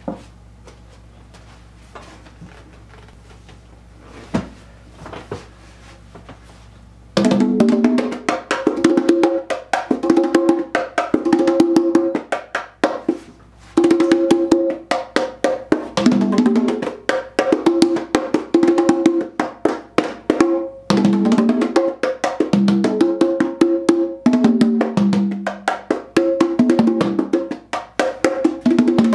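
Congas played by hand. A few light taps come first, then a steady rhythmic pattern starts about seven seconds in, moving between drums at several distinct pitches, with one short pause partway through.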